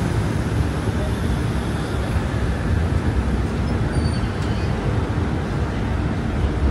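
Steady rumble of a passenger train's coach rolling along the track as it pulls out of a station, heard from the open coach doorway.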